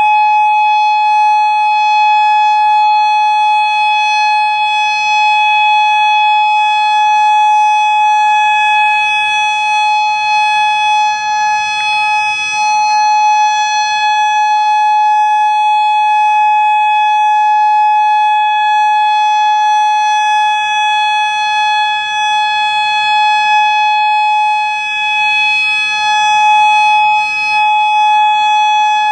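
Federal Modulator 6048 outdoor warning siren sounding the Alert signal, a steady, unwavering tone with strong overtones and only slight swells in loudness, during its monthly test.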